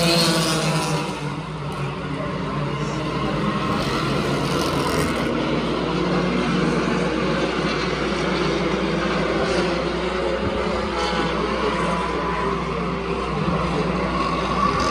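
Four-cylinder Hornet-class race cars running on the speedway oval: a steady, continuous engine drone, with one engine's pitch dropping in the first second or two.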